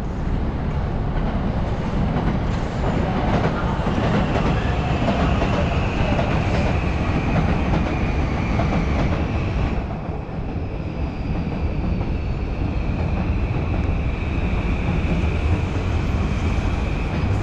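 Electric commuter train running along elevated tracks, wheels clattering over a steady rumble, with a high drawn-out whine that sets in a few seconds in and carries on to the end.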